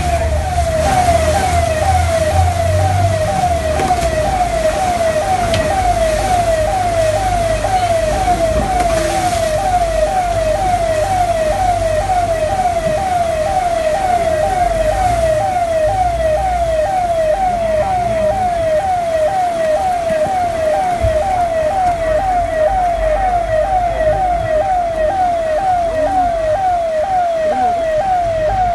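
A siren-like alarm tone that drops in pitch and repeats steadily, about twice a second, with a low rumble underneath for the first few seconds.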